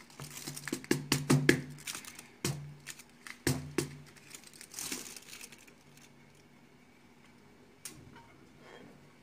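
Aluminium foil crinkling and a glass baking dish clicking and knocking against a foil-lined tray as the upside-down dish is handled, busiest in the first few seconds. A single click comes near the end as the dish is lifted off the turned-out pudding.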